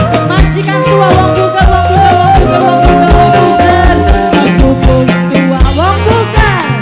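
Live dangdut band music played loud through a stage PA: electric guitars, keyboard and drums with a steady beat and a held melody line.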